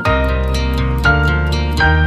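A mobile phone ringtone from the i-mobile i-style 5: a plucked, harp-like melody of short notes over a held bass line.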